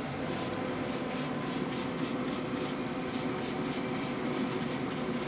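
Hand trigger spray bottle squirting apple juice over a pork loin, many quick squirts in a row at about three to four a second.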